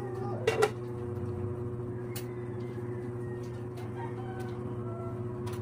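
A steady low background hum, with two quick knocks about half a second in and a few faint short high calls.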